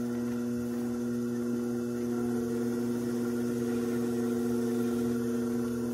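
Electric pottery wheel's motor humming steadily as the wheel turns for trimming.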